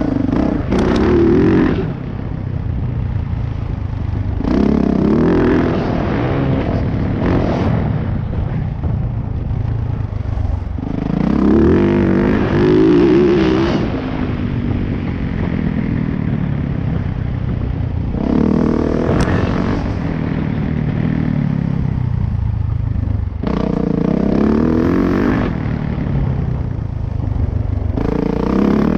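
2018 Yamaha YZ450F's four-stroke single-cylinder engine under riding load, revving up hard about six times and dropping back between the bursts as the dirt bike accelerates and rolls off between jumps.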